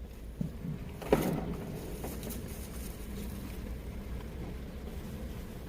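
Steady low rumble of a vehicle, with a brief faint sound about a second in.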